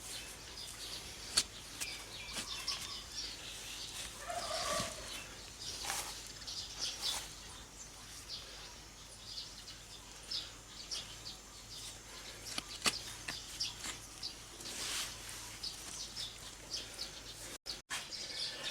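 Outdoor farmyard ambience: small birds chirping on and off, with a domestic fowl calling briefly about four to five seconds in.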